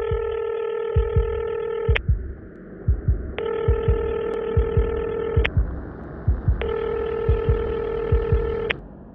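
Three long electronic beeps, each about two seconds with a gap of just over a second between them, over a heartbeat sound effect of low double thumps a little more than once a second.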